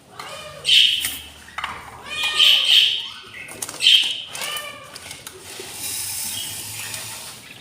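Budgerigars chirping and warbling in short bursts of calls, three main ones in the first four seconds, followed by a couple of seconds of soft hiss.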